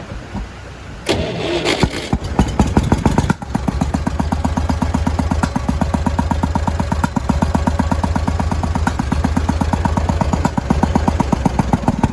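Massey Ferguson 135 petrol tractor engine running rough and missing. This is a misfire that the owner puts down to bad spark plugs.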